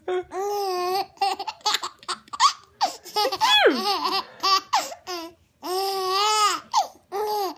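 A baby laughing hard at fake sneezes, in high-pitched peals, some drawn out for about a second, with shorter breathy bursts between.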